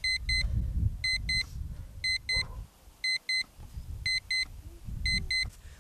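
Small square travel alarm clock beeping: a high electronic double beep repeated once a second.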